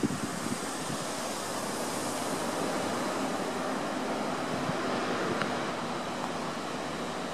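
Steady, even rumble of a Rhaetian Railway train led by a Ge 4/4 II electric locomotive as it approaches, with wind on the microphone.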